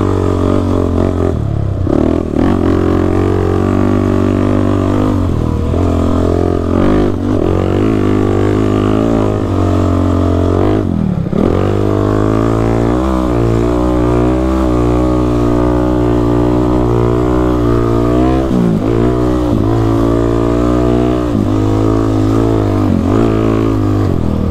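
A sport quad's engine running hard under changing throttle, its pitch repeatedly climbing and falling, with several sharp drops and quick recoveries as the throttle is let off and opened again.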